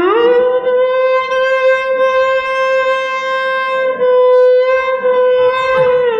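Violin playing a slow, unmetered alaap in Raag Kafi: it slides up into one long held note, then slides down again near the end.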